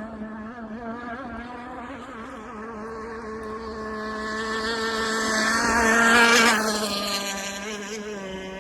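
Two-stroke gas engine of an RC hydroplane running at a steady high pitch as the boat passes close by. It gets louder to a peak about six seconds in, then fades as it moves away.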